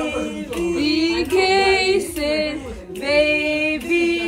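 Background music: a song with a woman singing a slow melody in long held notes.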